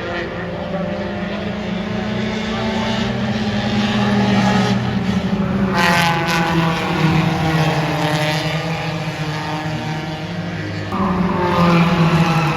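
Four-cylinder race cars running flat out around a short oval track, their engines droning at high revs and swelling and falling in pitch as cars pass. A fresh, louder engine note comes in about eleven seconds in.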